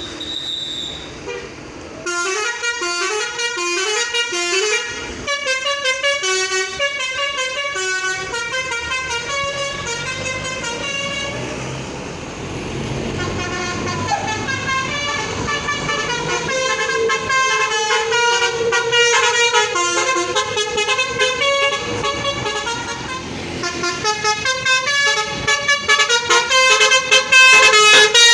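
Bus telolet basuri multi-tone musical air horn playing melodic runs of short notes that step up and down in pitch. It has a rumbling stretch partway through and gets louder toward the end.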